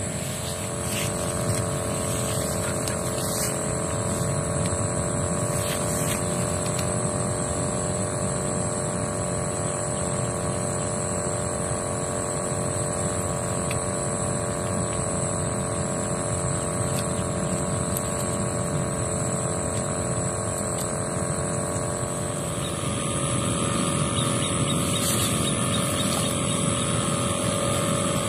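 A steady engine-like drone with a constant hum and rushing noise underneath; its tone shifts slightly about three quarters of the way through.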